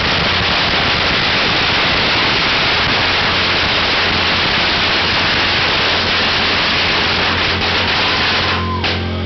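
A long strip of firecrackers burning off in one unbroken rapid crackle, with a motorcycle engine idling underneath. The crackling stops near the end.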